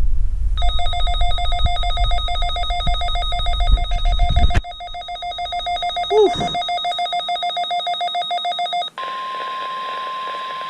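A weather radio receiver's alert alarm beeping in a rapid, ringing trill for about eight seconds, marking a Required Weekly Test. Near the end it gives way to a single steady tone, the NOAA Weather Radio 1050 Hz warning alarm tone, over radio hiss.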